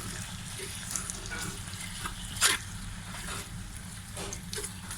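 Minced beef sautéing with onion and garlic in a pan, sizzling steadily while it is stirred, with one sharp utensil clink against the pan about two and a half seconds in.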